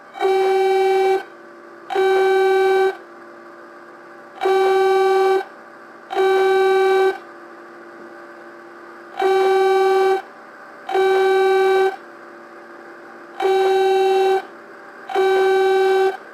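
Electronic emergency-alert tone sounding in pairs of one-second beeps, four pairs in all, each beep a buzzy tone held at one steady pitch. A low steady hum runs underneath between the beeps.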